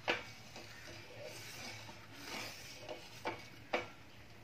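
Steel spoon stirring hot milk in a steel pot, scraping and clinking against the pot: a sharp clink just after the start and two more about three seconds later. The milk is being curdled with lemon water.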